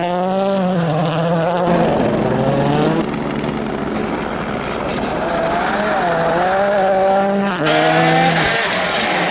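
Ford Fiesta rally cars' engines revving hard, the pitch climbing and dropping with gear changes and lifts. Several passes are spliced together, with abrupt jumps in the sound about three seconds in and again near eight seconds.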